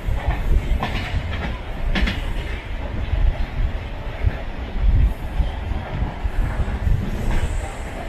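Train running along the track: a steady heavy rumble, with sharp clacks from the wheels about a second in, about two seconds in and near the end.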